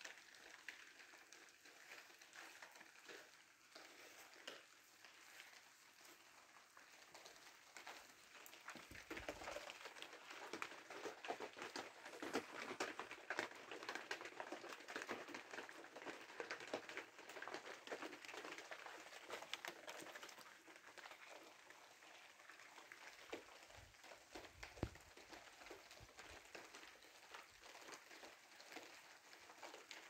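Rain falling, a faint, dense patter of many small drops that swells louder in the middle stretch before easing back.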